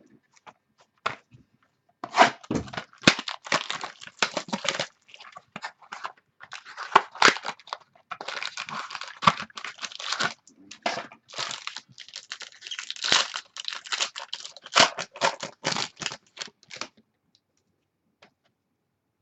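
Plastic wrapping and card packaging tearing and crinkling in quick irregular bursts as a sealed box of trading cards is opened by hand. The sound stops a couple of seconds before the end.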